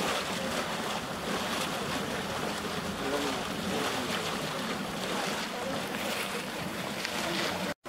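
Cold-water geyser erupting, driven by carbon dioxide gas: a steady rushing and splashing as the jet of water spouts up and falls back into its shallow basin.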